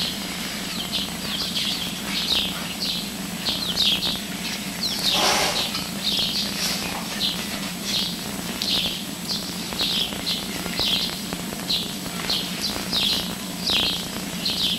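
Small birds chirping over and over, short high chirps about two a second, over a steady low hum. There is a brief rushing noise about five seconds in.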